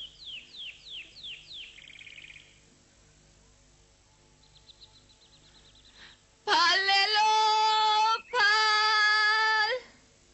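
Birds chirping in quick falling notes, with a faint trill a few seconds later. About six seconds in, a high voice sings two long held notes, the loudest sound.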